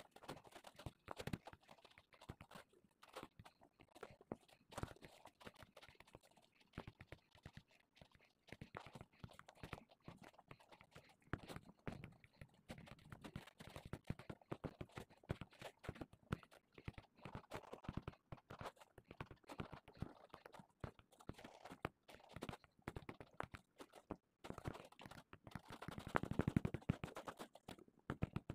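Faint, irregular tapping and clicking of fingers working a phone's touchscreen, growing denser and louder near the end.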